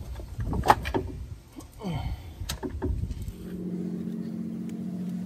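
Scattered clicks and knocks of hands and metal parts being handled under a car. About three seconds in, a steady low hum starts and carries on.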